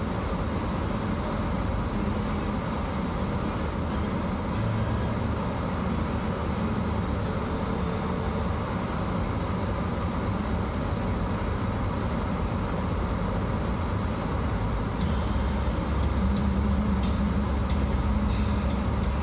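Steady road noise inside a car driving along a snow-covered street, a low rumble with a high hiss that grow louder for the last few seconds.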